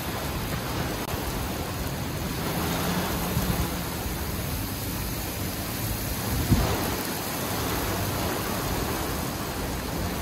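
Heavy thunderstorm downpour: a steady rush of driving rain and wind, with one brief sharp thump about six and a half seconds in.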